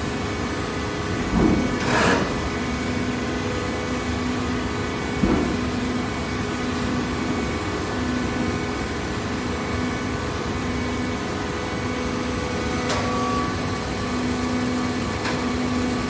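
Hydraulic baler's electric motor and pump running with a steady hum. A couple of short knocks come about a second and a half and two seconds in, and a lighter one a few seconds later.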